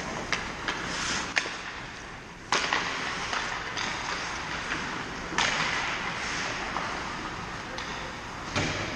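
Ice hockey skates scraping and hissing on rink ice, with a few sharp clacks of sticks and puck in the first couple of seconds. Two louder sudden scrapes come about two and a half and five and a half seconds in.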